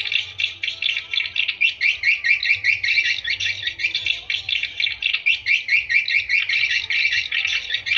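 Swiftlet lure call: dense, continuous rapid twittering chirps of edible-nest swiftlets, the kind of recording played to draw swiftlets to a nesting house.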